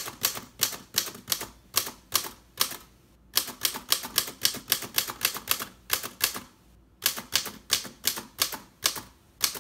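1928 Underwood Portable three-bank typewriter typing the figure characters: a run of sharp typebar strikes, about three to four a second, broken by two short pauses.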